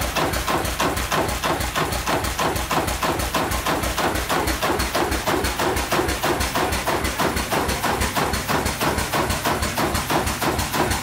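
Century-old Kromhout hot-bulb marine engine running, with a steady, even knock of several beats a second.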